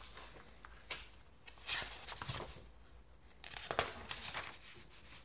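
Paper rustling and crinkling as sheets of a legal pad are flipped over to a fresh page, in two main bursts about two seconds apart.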